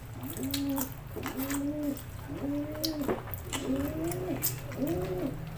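A dove cooing over and over: short arched calls about once a second, coming closer together near the end. Sharp wet clicks of chewing and lip-smacking sound close by.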